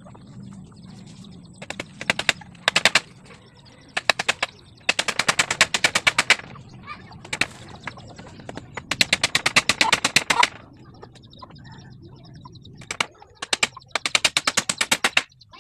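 Rapid bursts of sharp, evenly spaced knocks from carpentry work on the wooden cage frame, several runs of quick-fire strikes with short gaps between them.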